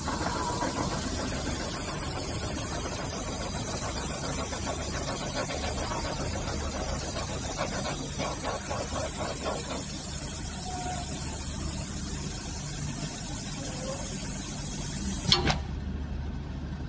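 Powder filling machine running as it fills a bag: a steady machine hum with a hiss over it. Near the end there is a sharp click, and the hiss stops.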